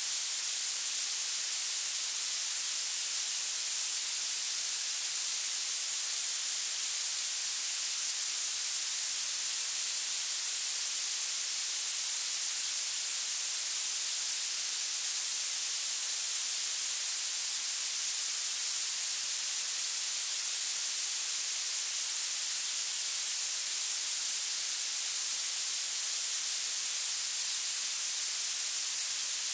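Violet noise: a steady, unchanging synthetic hiss, thin and bright, its strength climbing toward the highest pitches with almost no bass.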